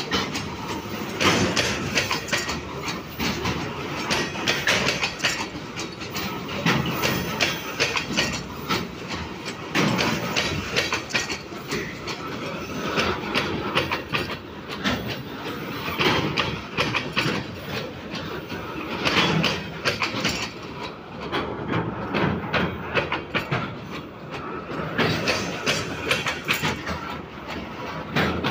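Heavy coal hopper freight train rolling past close by, its steel wheels clattering over the rail, with heavier clanks about every three seconds as each set of bogies crosses. The pounding comes from a loose, poorly maintained stretch of track that shifts under the wagons.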